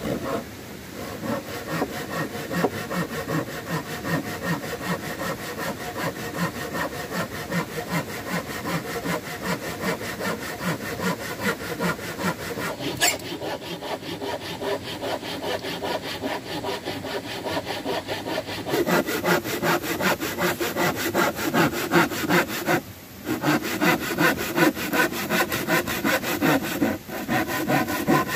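Hand saw cutting wood with steady, rapid back-and-forth strokes. It gets louder about two-thirds of the way through and stops briefly twice near the end.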